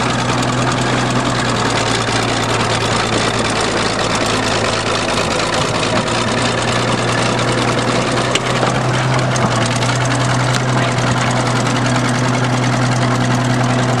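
Crawler bulldozer's engine running steadily as its steel tracks roll over a wrecked car, with a few sharp knocks from the crumpling body.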